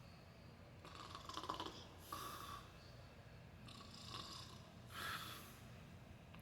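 A sleeping person snoring quietly: two snoring breaths about three seconds apart, each a longer rasp followed by a shorter one.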